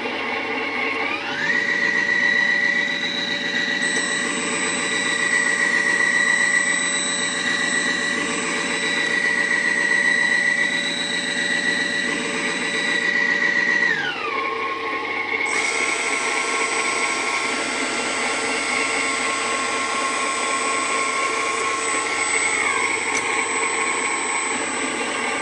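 Whine of a 1:14 scale RC truck's loader-crane hydraulic pump motor, running steadily. Its pitch steps up about a second and a half in, drops back about halfway through, and shifts a little again near the end as the crane moves.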